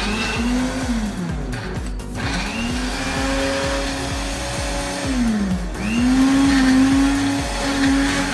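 Small electric blender grinding a thick spice paste of garlic, chili and dried shrimp, run in pulses. The motor spins up and winds down three times: a short run, a longer one of about three seconds, then a third that keeps running near the end.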